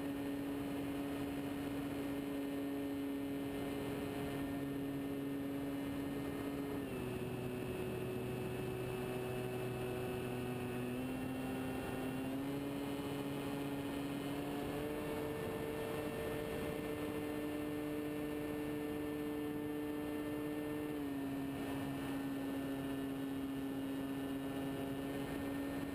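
Radio-controlled scale de Havilland Tiger Moth model's motor and propeller running in flight, heard from on board as a steady pitched hum. Its pitch drops about a quarter of the way in, climbs back in two steps through the middle, and drops again near the end as the throttle is changed.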